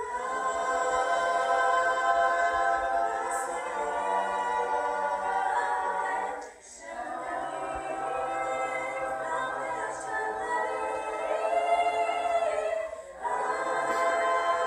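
Mixed school choir of girls' and boys' voices singing in parts, in long phrases broken by two short pauses for breath.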